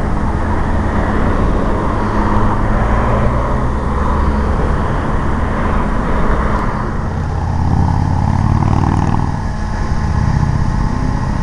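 A motor vehicle engine running steadily, with a continuous low hum that shifts about seven to eight seconds in.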